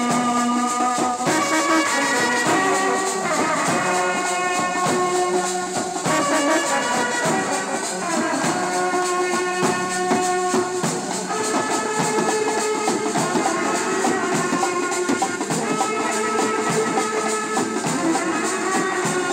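Indian wedding brass band playing a melody in long held notes on trumpets and other brass horns, over percussion keeping a fast, even beat.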